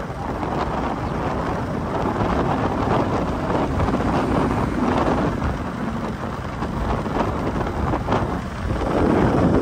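Wind buffeting the microphone: a rough rumbling noise that swells and dips and grows louder near the end.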